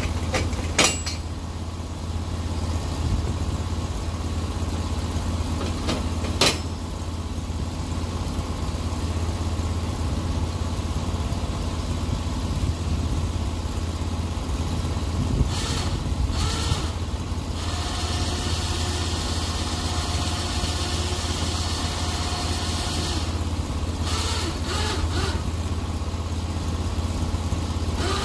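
Engine of a Norwood HD36 portable bandsaw mill running steadily, with a couple of sharp knocks in the first several seconds.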